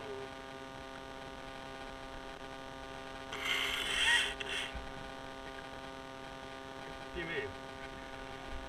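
A steady engine hum, with a brief loud rustling scrape a little over three seconds in.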